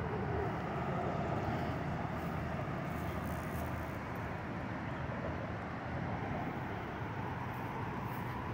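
Steady wind noise buffeting the microphone, with tyre and road rumble from a KBO Breeze e-bike riding along.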